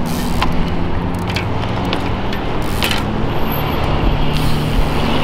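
Road traffic: a vehicle engine running with a steady low hum as cars pass, with a few short clicks.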